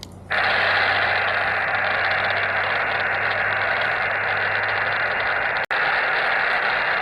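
Hiss of HF band noise from the Xiegu X6100 QRP transceiver's speaker as it switches back to receive after a CQ call on SSB, starting abruptly just after the call ends; steady static with no station answering. It cuts out for an instant near the end.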